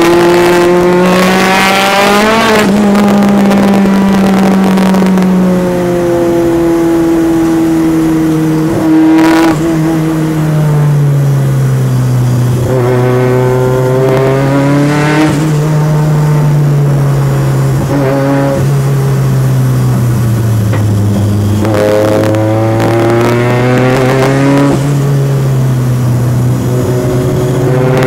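Turbocharged Peugeot 205's four-cylinder engine driven hard on a race circuit, heard from inside the car. The pitch climbs under acceleration, drops sharply at gear changes and sags as the driver lifts off for corners, then climbs again.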